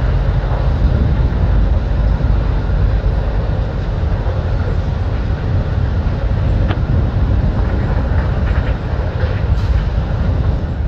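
Canadian Pacific GE ES44AC diesel locomotive approaching at the head of a freight train, its engine running with a steady low rumble.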